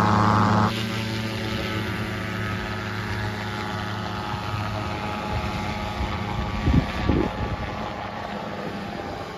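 Paramotor's two-stroke engine and propeller droning steadily as it flies past overhead, a louder, closer engine tone cutting off sharply under a second in. A couple of low bumps come about seven seconds in.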